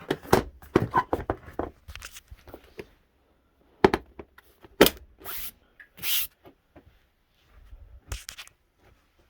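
A motorcycle seat being handled and fitted back onto a 2019 Kawasaki Z400: a quick run of knocks and scrapes, then a few sharp clunks and short scraping rasps as it is pushed into place.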